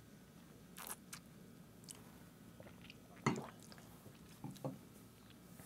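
Faint mouth sounds of two people sipping and tasting a cocktail: small lip smacks and swallows, with a short soft knock about three seconds in as a stemmed glass is set down on the wooden counter.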